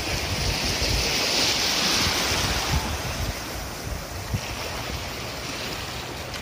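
Small surf washing in over shallow water, with wind buffeting the microphone. The wash is strongest for the first three seconds or so, then eases.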